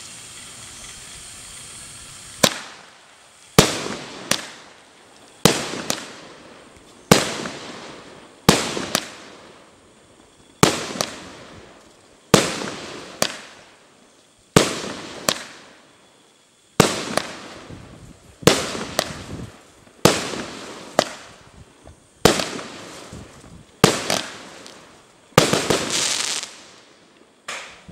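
Doremi DFC0809C 1-inch 16-shot fireworks cake: a couple of seconds of steady fuse hiss, then a rapid series of sharp shots and bangs about a second apart, each fading into a crackling tail.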